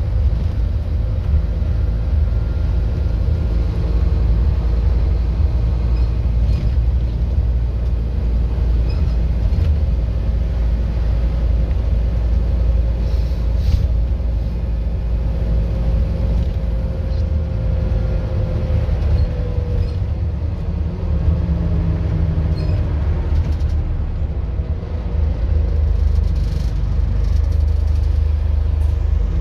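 Scania N230UD double-decker bus running along the road, heard from inside the passenger saloon: a steady low rumble of engine and drivetrain, with a faint whine that falls in pitch a little past the middle.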